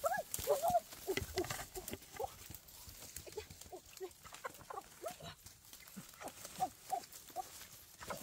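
A chicken giving many short, repeated clucks and squawks, densest in the first second and then more scattered: the alarm calls of a chicken being chased. Rustling and crackling of undergrowth underfoot runs beneath.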